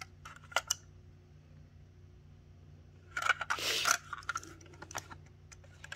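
Handling noise from a plastic HO-scale model locomotive being turned over in the hand: a couple of light clicks about half a second in, then a brief scuffing rustle, the loudest sound, about three seconds in, followed by a few small ticks.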